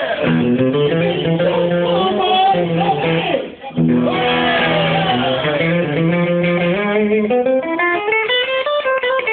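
A rock'n'roll band playing live, with electric guitar to the fore. The sound briefly drops out about three and a half seconds in.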